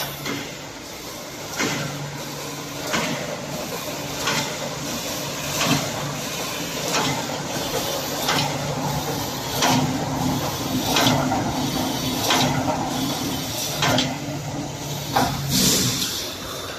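Automatic wire mesh panel welding machine running, with a regular clacking weld stroke about every second and a half over a steady low hum.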